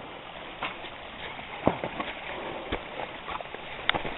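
A few sharp knocks and clacks as a dirt bike is manhandled over rocks, its engine not running, over a steady rushing background noise.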